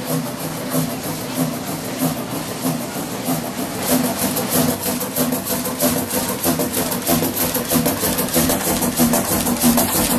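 Fairbanks-Morse stationary diesel generator engine running steadily, with an even, rapid beat.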